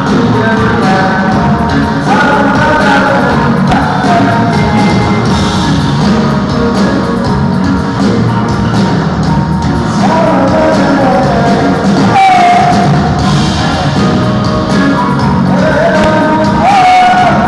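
A band's soundcheck: amplified live music with a singer, played through the PA in a large, mostly empty hall.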